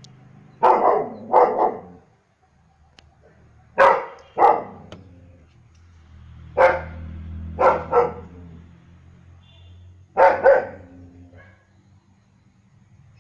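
German shepherd dog barking: about eight barks, coming in pairs and threes a few seconds apart.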